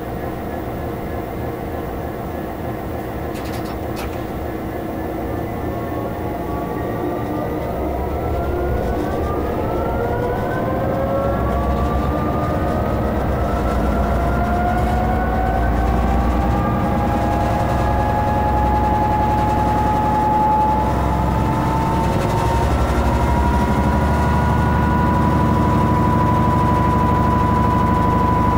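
Class 66 diesel-electric locomotive heard from the cab while hauling a freight train, its two-stroke V12 diesel working harder: a whine rises in pitch from about a third of the way in, then levels off into a steady tone as the sound grows louder.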